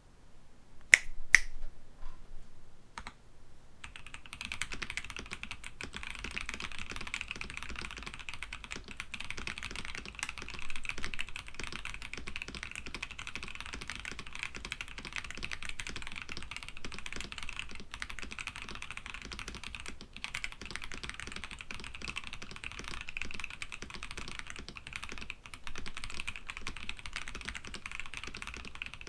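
Continuous fast typing on a KBD67 Lite mechanical keyboard with lubed Boba U4T tactile switches and PBT Cherry-profile keycaps, a dense run of key clacks. A few separate sharp keystrokes come in the first seconds before the steady typing starts about four seconds in.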